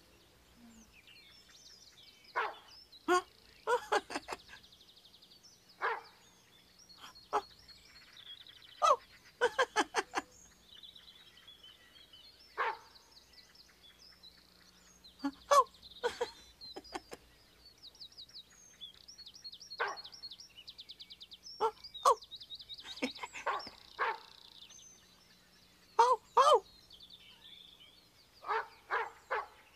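A dog barking in short barks, sometimes single and sometimes in quick runs of two to four, every few seconds. Birdsong with quick high trills and chirps goes on underneath.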